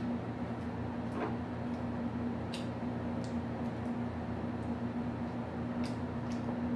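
Eating noodles with a fork: scattered faint clicks and smacks of fork and mouth, over a steady low hum.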